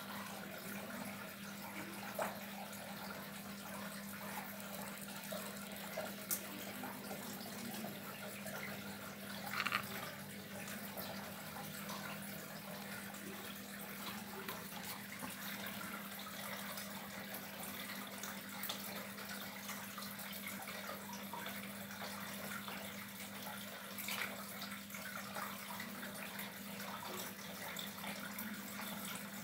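Water trickling steadily, with a few brief splashes standing out now and then over a faint steady hum.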